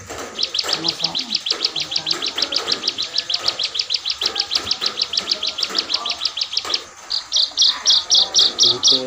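Caged ciblek songbird singing a fast, even string of high chip notes, about eight a second, for some six seconds. After a brief pause it starts a louder, slightly slower series.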